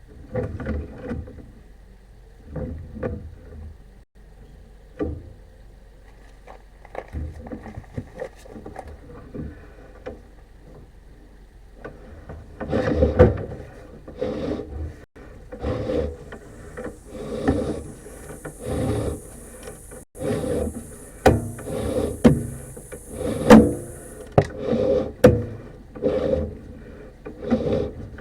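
Sewer inspection camera push cable being fed into the sewer lateral: repeated scraping and knocking of the rod, sparse at first, then about once a second in the second half, with a hiss for several seconds in the middle.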